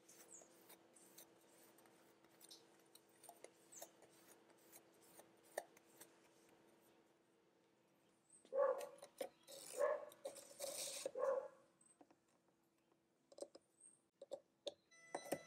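Hand work with small parts: a plastic zip bag crinkling and clicking over a faint steady hum, then about halfway through a few seconds of louder scraping and squeaking as a copper-clad board is set on a desktop CNC router's bed and clamped down, with a few more clicks near the end.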